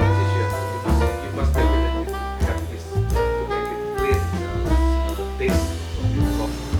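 Background jazz music: saxophone-like melody over bass and drum kit with a steady beat.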